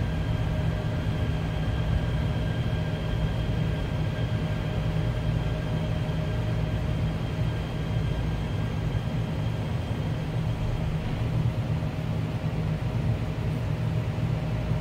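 Interior running noise of a Dawonsys-built Seoul Line 4 electric subway train as it slows into a station and stops: a steady low rumble with faint thin whining tones that fade out about eleven seconds in.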